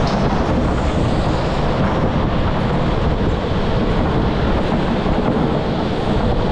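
Go-kart driving at speed round an indoor track: a loud, steady rumble and hiss from the kart's tyres and chassis.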